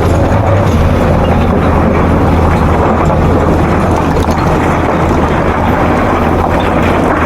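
Excavator's diesel engine running steadily under load, a continuous low drone with a rough mechanical noise over it.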